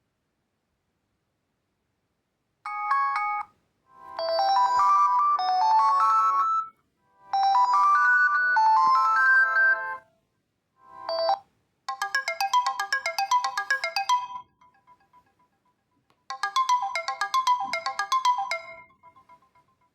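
A Reeder P13 Blue 2021 smartphone playing its preset tones one after another. Each is a short electronic melody that cuts off after a few seconds, with a silent gap before the next begins.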